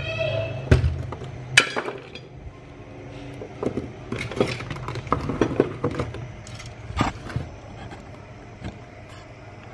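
Scattered knocks and metal clinks as the opened metal case of an inverter welder and tools are handled on a workbench. The loudest knock comes about a second and a half in, and a cluster follows around the middle. A low hum sounds for the first couple of seconds.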